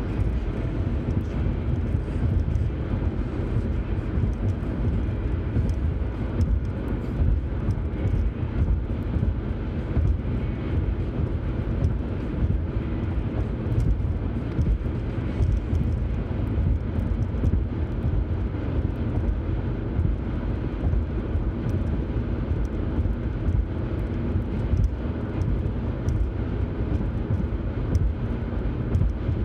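Steady road noise inside a car cruising on a highway: an even low rumble of tyres on pavement, engine and wind.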